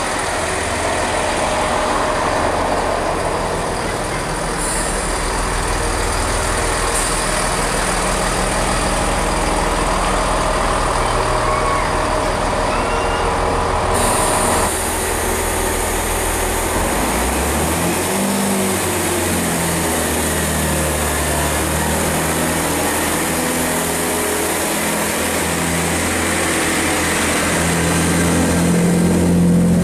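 Great Western Railway diesel multiple-unit trains. First a unit running along the line; then, about 14 seconds in, a unit right alongside whose diesel engine note climbs in steps, getting loudest near the end.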